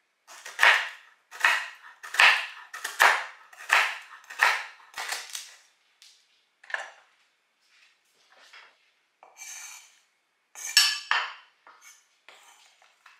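A utensil strikes a dish in a regular rhythm, about one stroke every three-quarters of a second for the first five seconds. A few faint taps follow, then a short clatter near the end.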